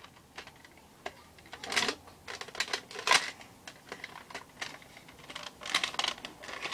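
Hard plastic Nerf blasters being handled and fitted together: a few sharp clicks and short rattling scrapes. The loudest click comes about three seconds in.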